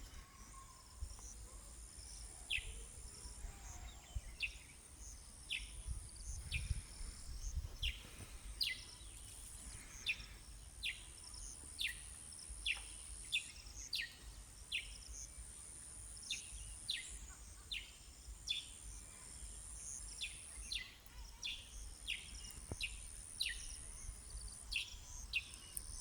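Songbirds chirping, one calling a short falling note over and over, about once or twice a second. A high, steady insect buzz comes and goes in stretches of a few seconds.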